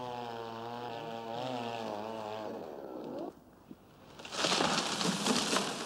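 A chainsaw running, its pitch wavering under load, cuts off about three seconds in. After a short pause comes a loud rushing, crackling crash of branches as a felled tree comes down.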